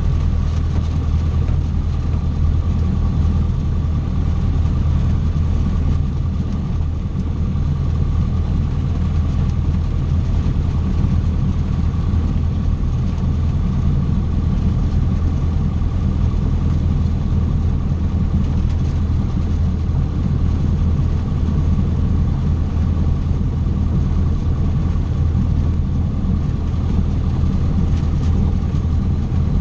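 Cessna 150's four-cylinder Continental O-200 piston engine and propeller running steadily: a low drone with a thin, steady high whine over it.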